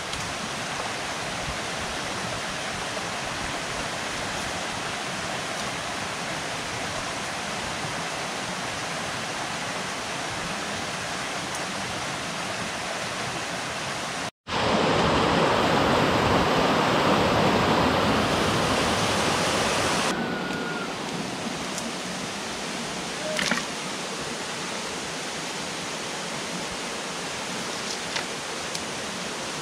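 Steady rush of flowing river water. About halfway through, a brief dropout from an edit cut gives way to a louder, fuller rushing for about five seconds before the steadier flow returns, with a few faint ticks near the end.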